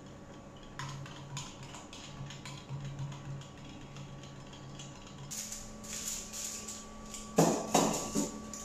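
Metal spoon stirring a drink in a glass tumbler, with many quick light clinks against the glass. Near the end, two louder clunks as a foil-lined tray goes into a countertop oven.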